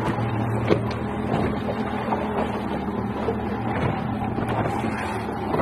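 Boat engine running steadily under wind and water noise, with the whirring and a few sharp clicks of a big-game fishing reel under load from a hooked giant trevally.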